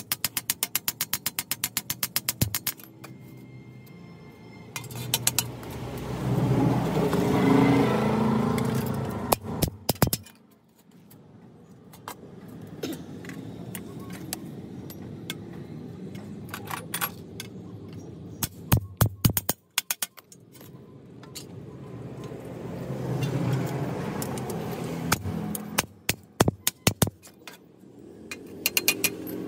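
Hand shears cutting through a rusty sheet-steel drum, with sharp metallic snips and clinks scattered through. Twice a vehicle passes, swelling and fading away. A fast, even ticking beat runs for the first couple of seconds.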